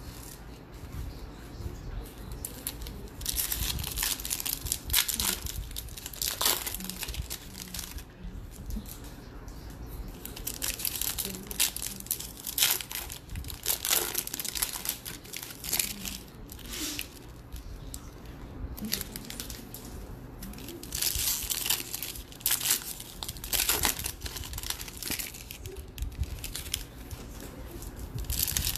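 Trading-card pack wrappers torn open and crumpled by hand, in repeated bursts of crinkling with short pauses between as one pack after another is opened.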